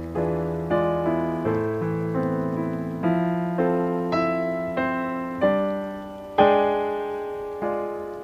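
Slow, gentle solo piano music: single notes and chords struck about every half second to a second, each ringing and fading before the next, with the strongest chord about six seconds in.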